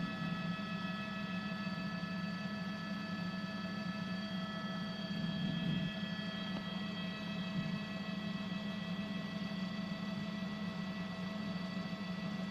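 Steady drone of a helicopter cabin heard through the reporter's open microphone: a constant low hum with a set of steady high-pitched whining tones above it, unchanging throughout.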